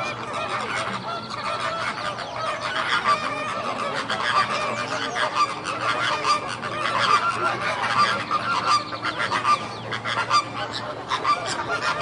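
A flock of birds calling, many calls overlapping in a continuous chorus.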